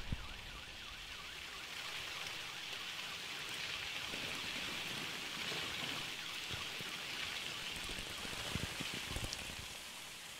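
Paint falling in showers like heavy rain, a steady hiss of drops landing that swells about two seconds in and eases off near the end. A few low thuds come in the second half.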